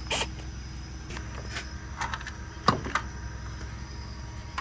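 Scattered metallic clicks and knocks of hands and tools working on a car, one sharper knock a little under three seconds in, over a steady low hum.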